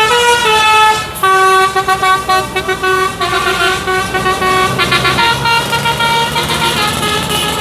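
Bus 'telolet' Basuri musical horn playing a tune of stepped notes, loud, with a short break about a second in and a change of tune about five seconds in, over a steady low rumble.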